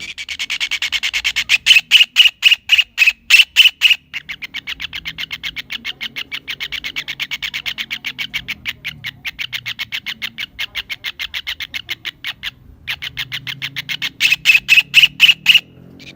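Kingfisher (cekakak) calling: long series of sharp, rapidly repeated high notes. It starts loud, runs on as a quicker, softer chatter, breaks off briefly about three-quarters through, then comes back as loud notes at about five a second.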